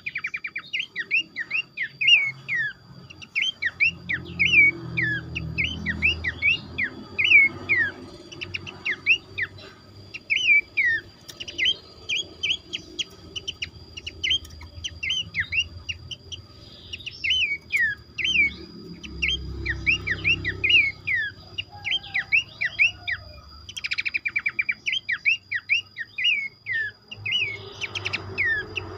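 Several pelanduk semak (Horsfield's babblers) calling together: a dense, unbroken run of short, sharp, downward-sweeping chirps, several a second, with a quick rattling trill now and then. A faint steady high tone and a low rumble sit underneath.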